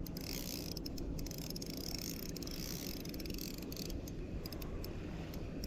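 Spinning reel being wound, giving faint irregular ticks over a steady low rumble of wind and water around the kayak.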